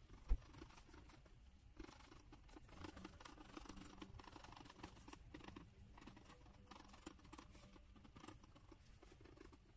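Fine scenery dirt being shaken through a small handheld round sifter, a faint patter of grains and small ticks against the mesh. A single low thump just after it begins.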